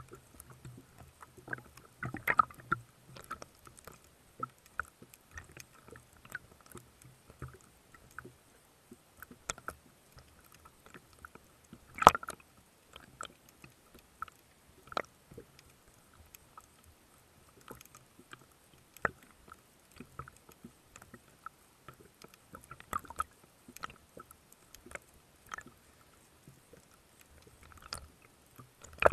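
Underwater clicks and knocks heard through a speargun-mounted camera, scattered and irregular, with one sharp knock, the loudest, about twelve seconds in.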